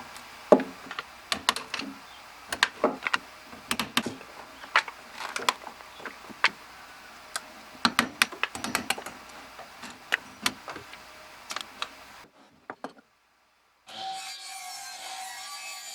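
Hammer striking a chisel, chopping waste out of a timber joint by hand: many sharp, irregular knocks of wood and steel, some in quick clusters. They stop about twelve seconds in, and background music starts near the end.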